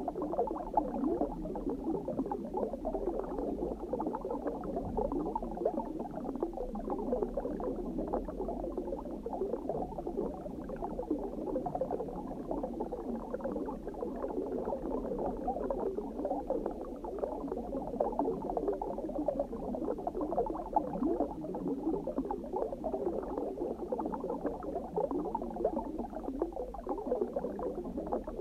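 Steady underwater bubbling: a dense stream of small bubbles popping and gurgling, with a faint low rumble beneath.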